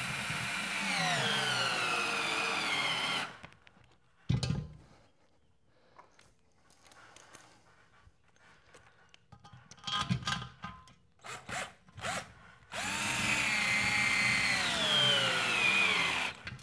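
Cordless drill fitted with a 13 mm socket driving lag bolts through a steel bracket into a wood stud, in two runs of a few seconds each. In each run the motor's whine falls in pitch as the bolt draws in under load. Between the runs there is a single knock and a few small clicks.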